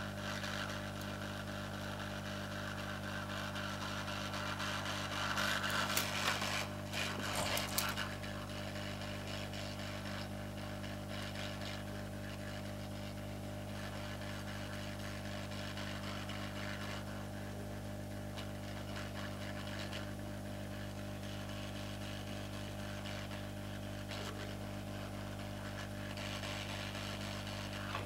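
Hot-air rework station blowing steadily, with a constant low hum and an airy hiss, while a small surface-mount part is soldered onto a circuit board. A few brief scraping clicks from tweezers on the board come about five to eight seconds in.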